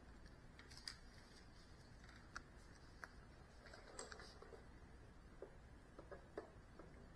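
Near silence: faint room tone with a few scattered faint clicks.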